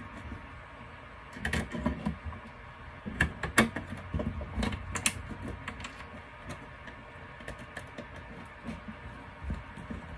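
Scattered small clicks and taps of hands handling a plastic power pigtail connector and its wires while plugging it in. The clicks come in clusters in the first half and thin out later.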